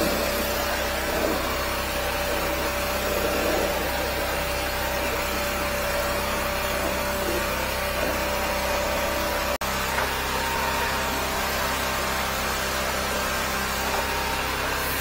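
13-horsepower high-pressure sewer jetter running steadily, its engine and pump droning without a break, with a momentary dropout about ten seconds in.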